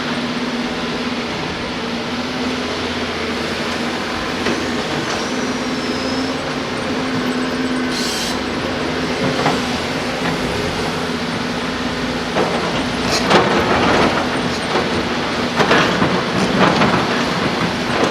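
Heavy diesel earthmoving machinery running steadily with a constant engine drone. In the last few seconds there are bursts of loud metallic clanking and rattling, typical of the bucket or load working sand and gravel.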